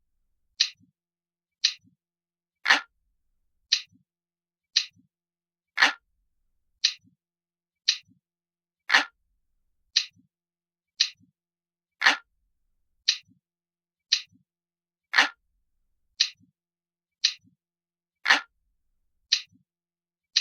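Looped clock-ticking sound effect: steady sharp ticks about one a second, every third tick a little heavier than the two before it.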